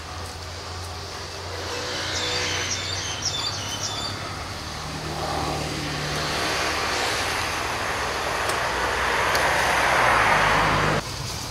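Outdoor background noise: a steady low hum under a rushing noise that swells toward the end and then cuts off suddenly. A short run of high bird chirps comes about two seconds in.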